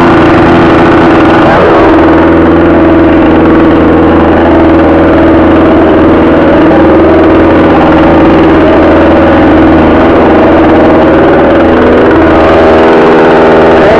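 A 62cc two-stroke chainsaw running steadily at idle, very loud and close, just after being started.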